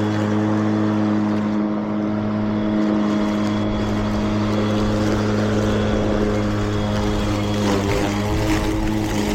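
Mowrator 2WD remote-control mower running with its blade spinning while mowing: a steady electric hum made of several even tones, wavering briefly near the end.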